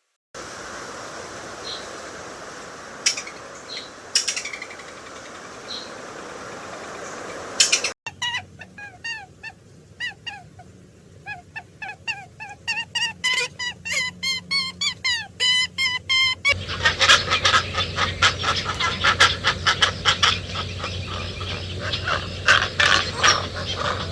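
Birds calling in three abrupt sections: a few scattered calls over steady background noise, then a run of short rising and falling chirps, then about eight seconds of dense, rapid calling from a flock.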